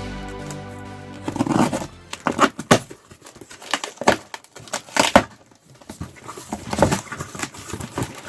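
Background music stops about a second in; then packaging is handled during unboxing: irregular crinkling and rustling with scattered sharp taps and knocks.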